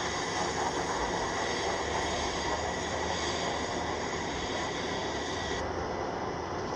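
F-16C Fighting Falcon jet engine noise as the fighter flies low past: a steady rushing noise with a faint high whine. The higher hiss drops away abruptly near the end.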